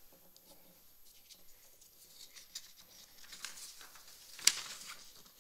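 Sheets of paper rustling and being handled at a lectern microphone: scattered small clicks and rustles, busier in the second half, with a sharper crackle about four and a half seconds in.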